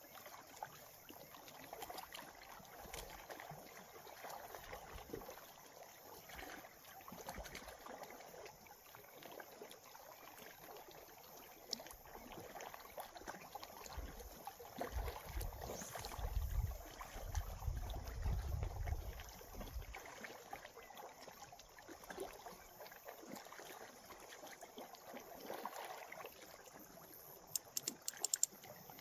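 Gentle water lapping, with wind buffeting the microphone in a low rumble for several seconds about halfway through and a quick run of small clicks near the end.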